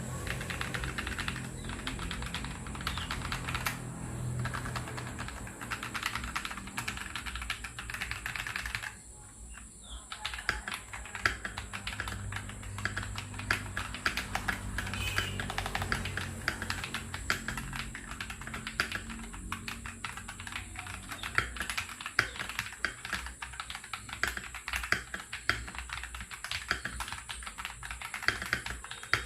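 Fast typing on a mechanical keyboard: a dense run of key clicks, with a brief pause about nine seconds in. A low hum sits under the typing for the first third.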